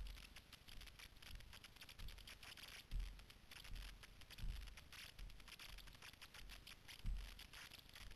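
Footsteps through dry leaf litter and twigs on a forest floor: faint, continuous rustling and crackling, with dull low thumps every second or two, the loudest about seven seconds in.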